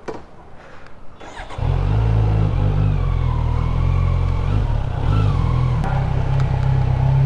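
Kawasaki Z900's inline-four engine running, coming in loud and steady about a second and a half in.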